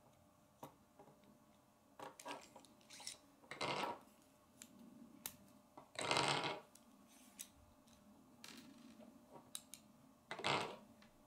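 Plastic K'nex parts clicking and rattling as a model is taken apart by hand, with scattered small clicks and three louder short rattles about three and a half, six and ten and a half seconds in.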